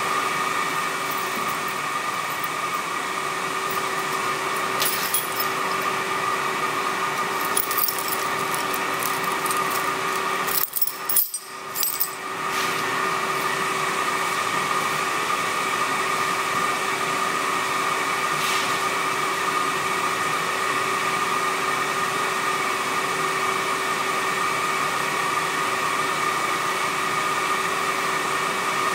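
Electric blower fan of a forge running steadily, an even whirring hiss with a steady hum. About eleven seconds in it breaks off briefly, with a few light clicks.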